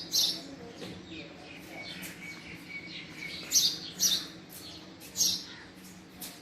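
Male house sparrow chirping: short, sharp single chirps, four loud ones spaced irregularly, with fainter chirps between them.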